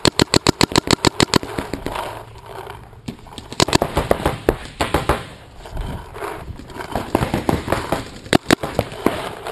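Shocker RSX paintball marker firing a rapid string of shots, about ten a second for the first second and a half, followed by shorter strings and single shots.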